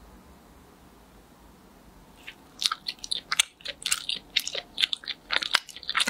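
Sticky taro mochi roll handled close to the microphone: after about two seconds of faint room tone, a dense run of quick, irregular wet clicks and crackles.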